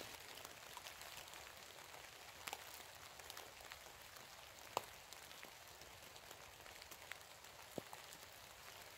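Near silence: a faint steady outdoor hiss with a few scattered light ticks, the clearest a little before the middle.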